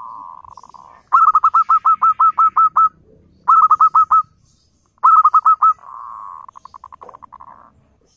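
Zebra dove (perkutut) cooing: a short purring note, then three quick runs of clipped staccato coos (about ten, six and five notes). The song ends in a rolling trill.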